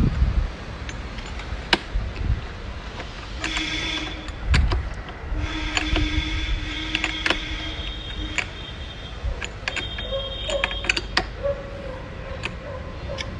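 Scattered clicks and light metal knocks from the brush cutter's metal nylon-trimmer head being handled and screwed onto its reverse-threaded shaft.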